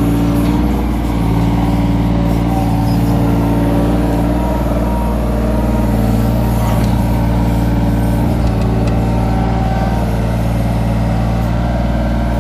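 Kobelco SK17SR mini excavator's diesel engine running steadily under working load while the boom and bucket dig, heard from the operator's seat.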